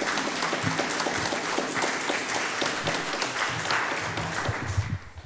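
Audience applauding, the clapping dying away just before the end.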